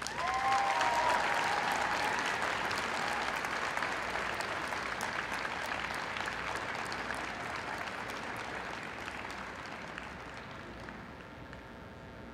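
Arena crowd applauding as a performance ends, with a few cheering voices just after the start; the clapping is loudest in the first couple of seconds and slowly dies down.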